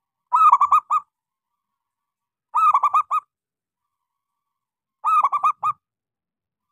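Zebra dove (local perkutut) singing: three short phrases about two and a half seconds apart, each a quick run of four or five clipped coos.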